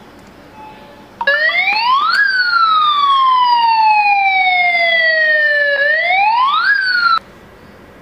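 Gas-leak alarm going off: an electronic siren tone starts about a second in, sweeps quickly up, falls slowly over several seconds, sweeps up again and cuts off abruptly. It is set off by lighter gas reaching the smart gas detector.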